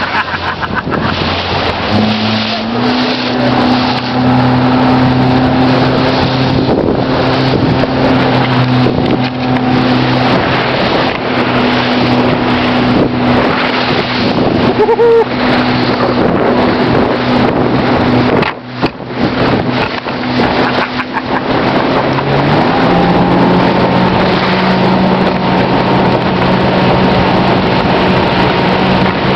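Motorboat engine running hard after the throttle is opened. Its pitch steps up about two seconds in and shifts again about two-thirds of the way through, over water rush and wind buffeting the microphone.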